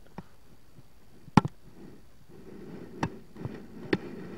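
Hard plastic Lego pieces being handled and knocked against a surface: a sharp double click about a second and a half in, then three more clicks and knocks in the second half, over a low rustle of handling.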